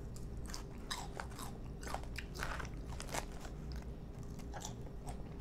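Close-up chewing and crunching of a mouthful of crisp lettuce salad, a steady run of irregular crackles.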